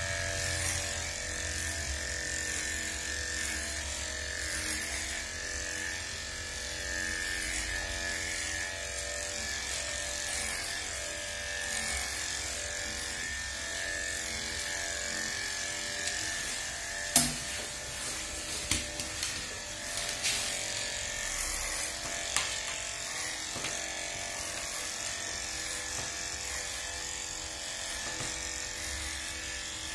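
PCS E-9020 electric pet clipper running with a steady hum as its blade and comb attachment cut through a dog's coat. A few sharp clicks come a little past the middle.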